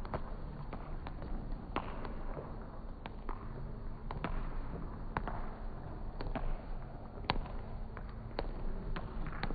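Footfalls of runners on an indoor sports-hall floor: irregular sharp taps, about one or two a second, ringing in the large hall, over a low steady hum.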